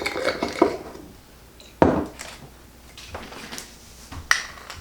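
Kitchen utensils and dishes clinking and knocking: a handful of separate strikes, some with a short ring, the loudest about two seconds in.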